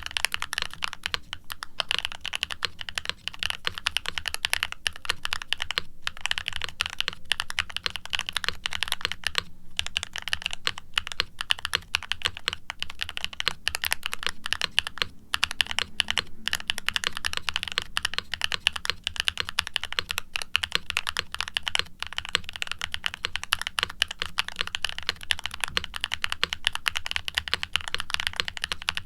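Continuous fast typing on a heavily dampened aluminium Novelkeys NK87 mechanical keyboard with HMX x Siliworks Nap linear switches, a carbon fiber plate and double-shot ABS keycaps: each keystroke gives a soft clack, with a few brief pauses.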